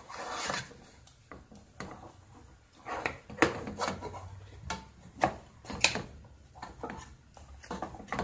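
Wooden spoon stirring neck bones and chopped onions in a pot, with irregular knocks and scrapes against the pot.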